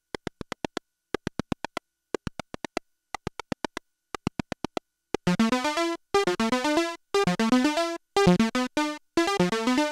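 Modular synthesizer patch: for the first five seconds, short clicky blips come in quick runs of about seven, one run each second. About five seconds in, a bright pitched note sequence comes in, loud and rhythmic, pausing briefly about once a second.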